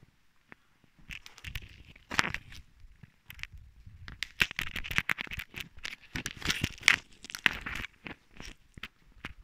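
Crackling and rustling noise on the camera's microphone, in irregular bursts with sharp clicks, loudest in the middle of the stretch.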